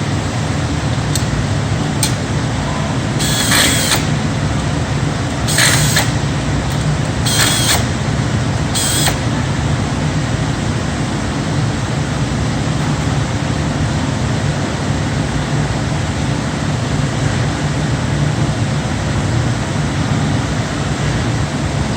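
Steady hum of factory machinery on an assembly floor, with four short hisses between about three and nine seconds in.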